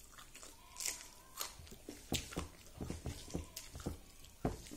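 A person eating rice by hand: irregular wet clicks and smacks of chewing, close to the microphone, mixed with the soft squish of fingers working the food on the plate.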